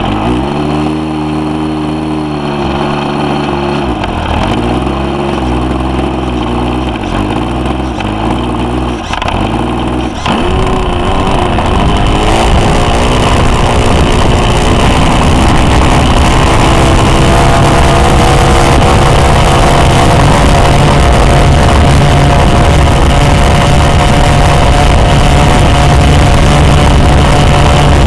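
Model aeroplane's engine starting and running on the ground, its pitch wavering up and down for the first ten seconds. About ten seconds in it is opened up to a louder, steady run.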